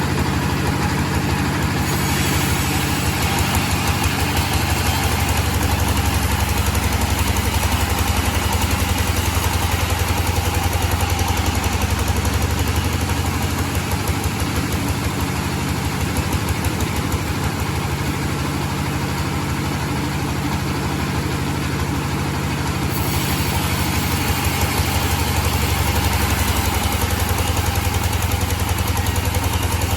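Engine running steadily at constant speed, with a rapid, even firing pulse.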